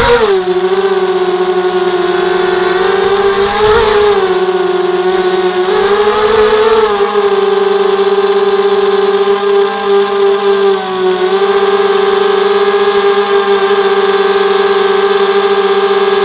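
Small quadcopter's four 2300 kV brushless motors and 5x3 carbon props whining loudly as it takes off from the grass and flies low, heard close up from the onboard camera. The pitch climbs with throttle about 4 and 6 seconds in and dips briefly about 11 seconds in, otherwise holding steady.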